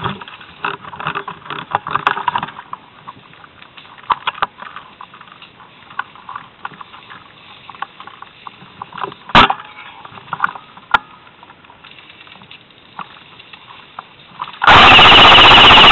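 Close rustling and crackling of leaves, ivy and twigs, with scattered clicks, as a person moves through woodland undergrowth. There is a single sharp knock about nine seconds in. Near the end a very loud, distorted burst overloads the microphone.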